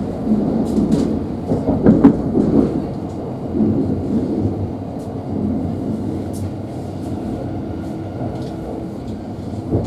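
Thameslink Class 700 electric train running, heard from inside the carriage: a steady low rumble of wheels on rails, with scattered faint clicks.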